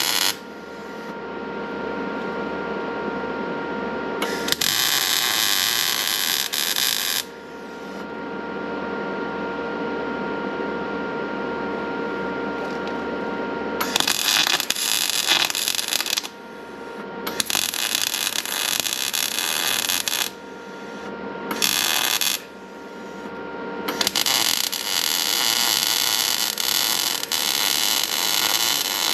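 Electric arc welding on a snowblower's steel frame: the arc crackles and hisses in separate beads a second to several seconds long, about five of them, stopping and restarting. A steady hum fills the pauses between beads.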